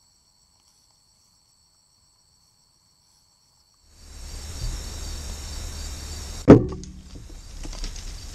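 Crickets chirping steadily, at first faintly. About four seconds in they grow louder over a low rumble. About six and a half seconds in comes a single sharp, loud crack of a bow shot at a feral hog, followed by a short low ring.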